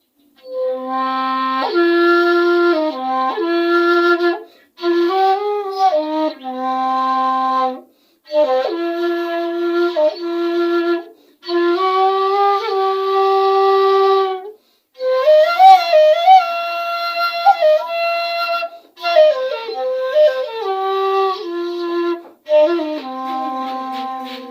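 Seven-hole shakuhachi with a coconut-inlay mouthpiece playing a slow melody in C minor pentatonic, in phrases of a few seconds with short breaks for breath between them. Some notes bend and waver in pitch, and the last phrase settles on a long low note that fades away.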